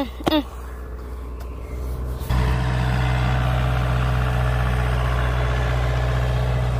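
A vehicle engine running. It grows louder, jumps up sharply about two seconds in, then holds a steady hum.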